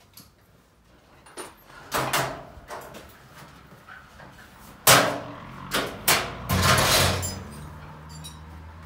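Sheet-metal body panels of a Fiat 55-46 tractor knocking and clattering as they are carried and stood against a wall. The loudest is a sharp bang about five seconds in, followed by a couple more knocks and a scrape.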